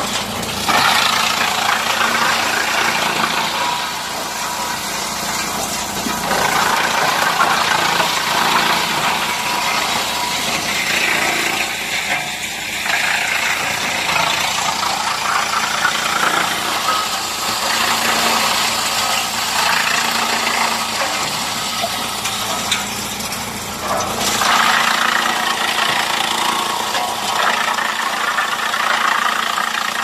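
BSR-HX400C wood chipper running and chipping logs fed in on its conveyor: a loud, continuous mechanical grinding that swells in several louder stretches as wood passes through the drum.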